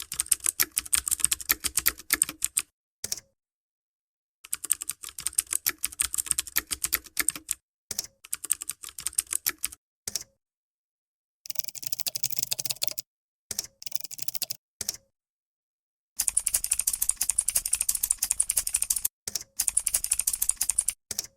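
Computer keyboard typing: rapid key clicks in bursts lasting one to five seconds, with short silent pauses between. The sound of the clicks changes about eleven seconds in and again about sixteen seconds in.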